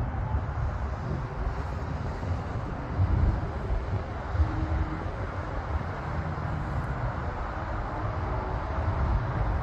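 Distant twin-engine business jet's engines running at taxi power as it rolls onto the runway, over a low, uneven rumble.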